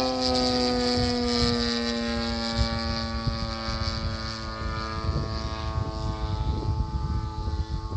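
Motor and propeller of a Flex Innovations Mamba 70 radio-controlled model plane droning steadily in flight, the pitch falling slowly. Wind rumbles on the microphone in gusts, growing near the end.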